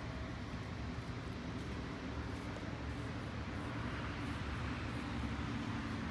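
A motor vehicle engine running with a steady low hum, with a hiss that grows from about four seconds in.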